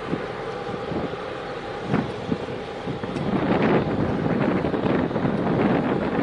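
Wind buffeting the microphone over a steady low rumble, with a few short thumps and the buffeting getting louder about halfway through.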